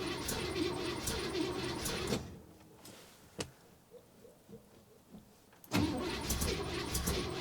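The carbureted engine of a 1967 Buick LeSabre runs rough and unevenly, cold and with its timing set a little too high. About two seconds in it drops away to quiet, with a click in the gap. A few seconds later it comes back loud all at once.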